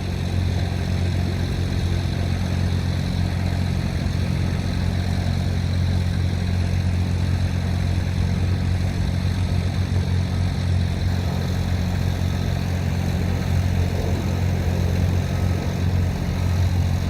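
Generator engine of a portable light tower running steadily, a constant low hum with no change in speed.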